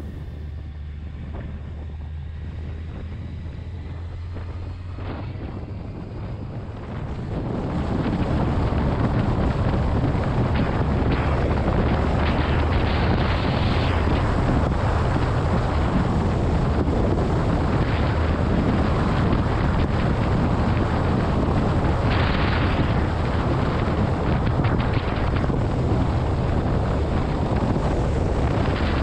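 Heavy wind noise on the microphone of a camera on a moving motorcycle, over the low, steady running of the bike's engine. The wind noise jumps much louder about seven seconds in as the motorcycle picks up speed on the open road.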